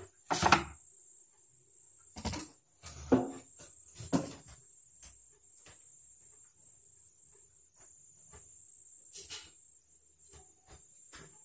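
Knocks and clatter of things being moved and set down while rummaging for a box cutter, loudest in the first four seconds, then fainter scattered taps. A steady faint high-pitched whine runs underneath.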